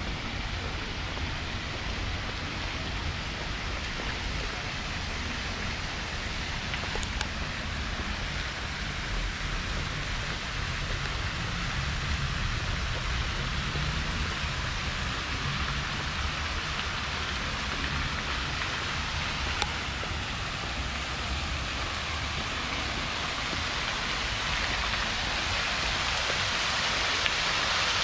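Steady hiss of falling water with a low rumble underneath, growing louder and brighter near the end.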